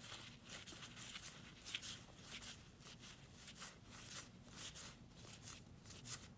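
Faint papery rustling and flicking of trading cards as a thick stack is thumbed through one card at a time, in short irregular strokes.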